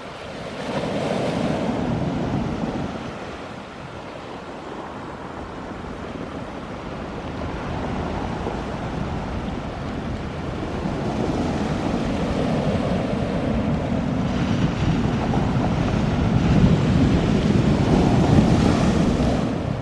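Jet noise from an Airbus A340-300's four CFM56 turbofan engines as the airliner arrives: a rushing roar that dips a few seconds in, then builds and is loudest near the end, with wind buffeting the microphone.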